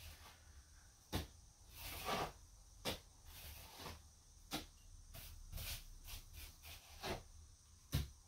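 A trowel and gloved hands scraping and packing loose sand-cement mortar in a shower pan. The sound comes as faint, irregular short scrapes and taps, with a longer scrape about two seconds in.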